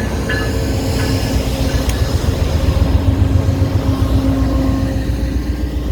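VIA Rail passenger train of stainless-steel Budd cars rolling past as it departs the station, a steady low rumble with a hum. A level-crossing bell dings twice in the first second, then fades out.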